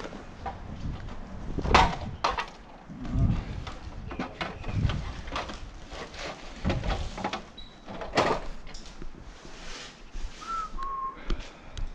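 Irregular knocks and rattles over a low rumble. A short high squeak comes about two thirds of the way in, and two more short squeaks come near the end.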